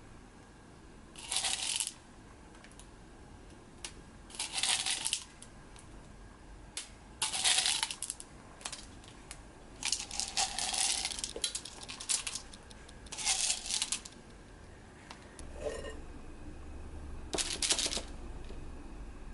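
Chocolate chips rattling and clattering in about seven short bursts as they are shaken out and sprinkled over piped meringue.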